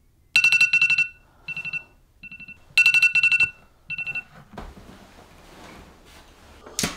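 Smartphone alarm ringing: groups of rapid electronic beeps on two pitches, repeating for about four seconds, then cut off when it is silenced.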